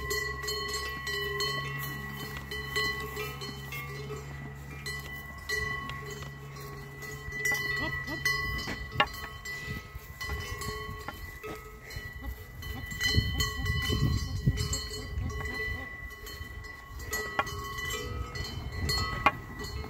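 Cowbells on a herd of walking cattle, ringing steadily with several overlapping tones and a few sharper clanks.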